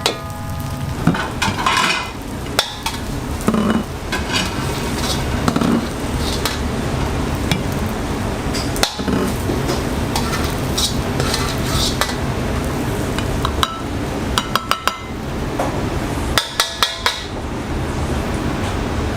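Fried rice stir-fried in a pan: a steady sizzle, with a metal spatula scraping and clanking against the pan, including quick runs of clanks near the end.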